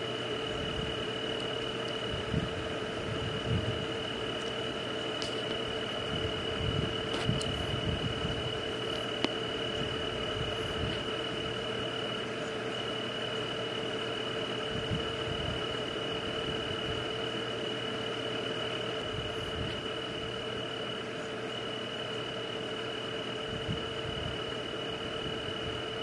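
Night chorus of insects and frogs: a steady high insect trill over a lower steady drone, with scattered short low croaks.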